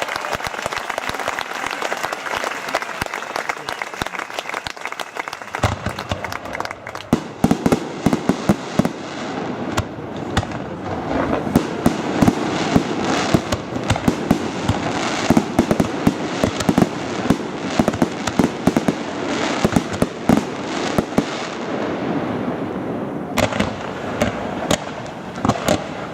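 Fireworks display: a dense run of bangs and crackling that grows heavier and fuller about six seconds in.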